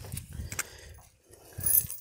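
Scattered small clicks, knocks and rattles from handling a parked motorcycle, with a louder clatter near the end.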